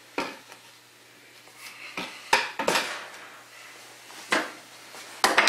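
Plastic PVC pipe parts and a primer can being handled and set down during priming: a handful of sharp knocks and clatters, the loudest a little past two seconds in and near the end.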